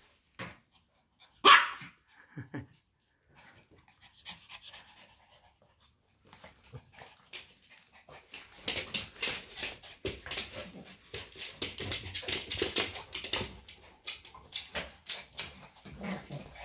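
Two dogs, a corgi and a small long-haired dog, play-wrestling: one loud bark about a second and a half in, then from about halfway on a fast run of heavy panting as they tussle.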